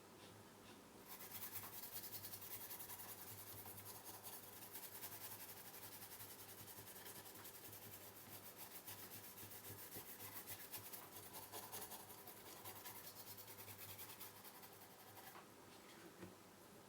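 Quick, repeated scrubbing strokes on a circuit board, cleaning off soldering flux residue; the scrubbing starts about a second in and stops shortly before the end.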